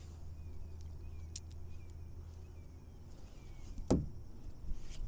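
Handling noise from a kayak-mounted camera: a steady low rumble with a few light clicks, and one sharp knock with a dull thump about four seconds in as the camera is moved against the plastic kayak.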